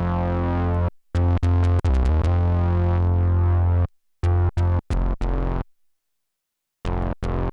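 Electric bass played through an Electro-Harmonix Bass Mono Synth pedal, giving synth-like bass notes with many buzzy overtones. Some notes are held for a couple of seconds and a few are short and clipped; each cuts off abruptly into silence. There is a pause of about a second after the middle before the notes resume.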